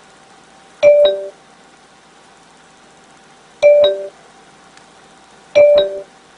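FineDrive iQ 3D HD300 car navigation unit sounding a two-note falling chime three times, each chime starting with a click.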